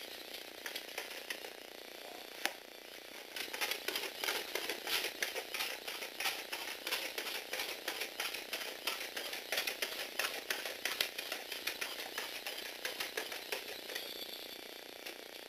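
Lego Technic walking robot driven by a Power Functions motor, its plastic gears and leg linkages clattering as the feet tap on a wooden floor several times a second from about three and a half seconds in. The tapping stops near the end while a faint steady whir goes on.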